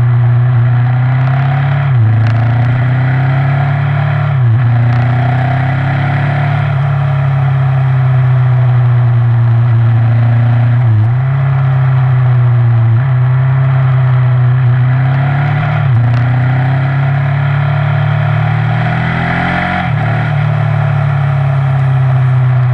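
KTM motorcycle engine running steadily under way, heard from on board the bike. Its note dips briefly and picks up again several times, about every two to five seconds.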